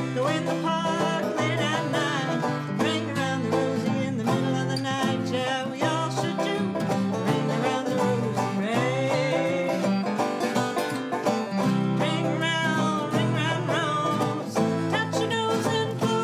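Banjo and acoustic guitar playing a tune together.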